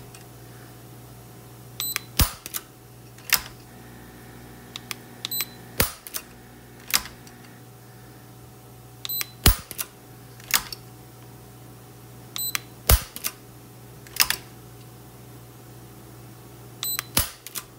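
Taurus 856 revolver dry-firing in single action as a Lyman digital trigger pull gauge is pulled on its trigger: sharp metallic clicks in pairs, about one pull every three and a half seconds, each pair just after a short electronic beep from the gauge.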